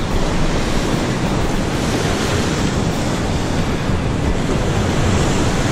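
Sea surf washing against a rocky shore, with wind buffeting the microphone: a loud, steady rush.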